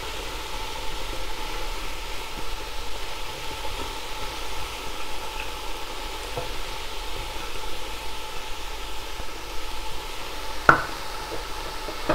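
Mushrooms and sliced onion sizzling steadily in a stainless steel pot. One sharp clink with a short ring sounds near the end.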